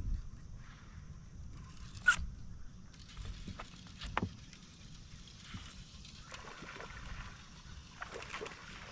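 Small sharp clicks and knocks from handling a fishing rod and reel on a boat deck: the loudest about two seconds in, another about four seconds in, then a few faint ticks, over a low steady rumble.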